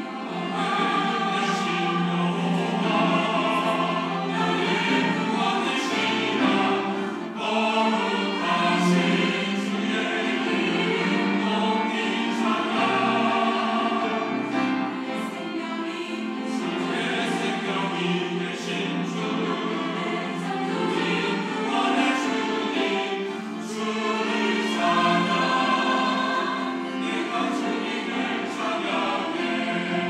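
Mixed church choir of women and men singing a Sunday anthem in parts, voices held and moving together without a break.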